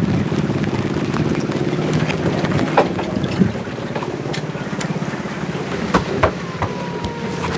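A small engine running steadily with a fast, even pulse, softening slightly partway through, with a few knocks and clicks over it.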